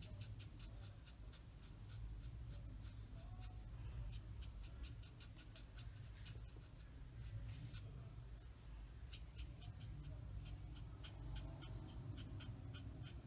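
Stampin' Blends alcohol marker stroking on cardstock as shading is laid in: a faint, uneven run of quick scratchy strokes.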